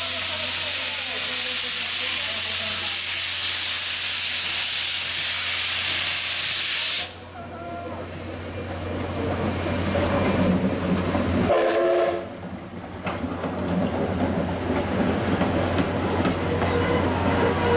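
JNR Class D51 steam locomotive D51 498 blowing steam from its open cylinder drain cocks, a loud steady hiss that cuts off suddenly about seven seconds in. The engine then sounds more quietly as it rolls slowly along the platform, with a brief whistle toot about twelve seconds in.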